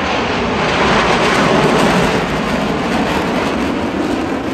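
Loud, steady rushing aircraft noise, a dense roar of engine and air that swells slightly and then eases a little.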